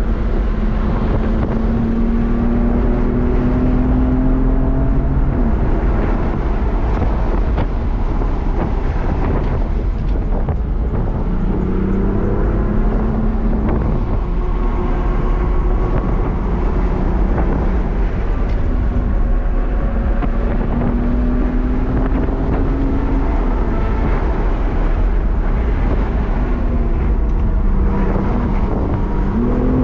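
BMW M4 Competition's 3.0-litre twin-turbo inline-six heard from inside the cabin on a race track, its pitch rising steadily under acceleration and then falling away several times, with road and tyre noise underneath.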